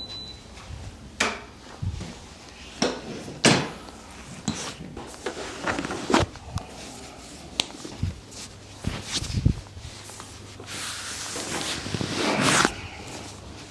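A patient being moved into position for a chiropractic adjustment: a string of separate knocks and bumps with rubbing and rustling, and a longer rustle near the end.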